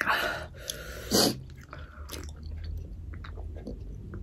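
Close-miked eating sounds: mouth chewing with soft smacks and small clicks, after a couple of short hissing bursts in the first second and a half.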